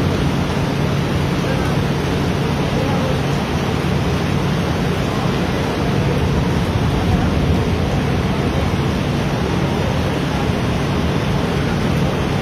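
Heavy tropical downpour with floodwater rushing through a street: a steady, loud wash of rain and moving water with no let-up.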